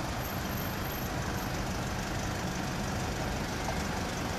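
Steady road traffic noise from cars on the road, with a low engine rumble.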